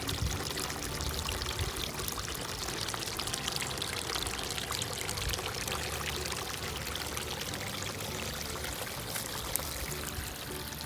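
Running water splashing and trickling steadily, as in a small creek.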